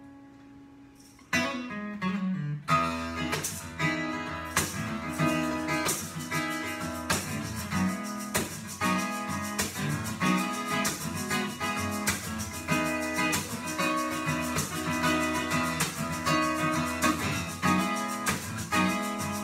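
Solo acoustic guitar playing a song's introduction: a chord rings and fades, a couple of single plucks follow, then from about three seconds in a steady rhythmic pattern of picked chords carries on.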